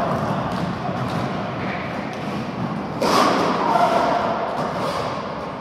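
Roller hockey play: a steady clatter of skates on the rink floor with repeated thuds and knocks of sticks and ball. The din grows louder suddenly about three seconds in.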